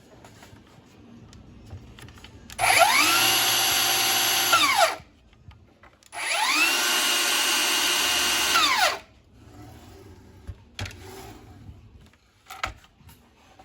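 HiKOKI C3607DRA 36 V cordless slide miter saw motor and 190 mm blade, switched on twice: each time it spins up with a quickly rising whine, runs steadily for about two seconds, and the whine falls away fast on release. A few faint clicks follow.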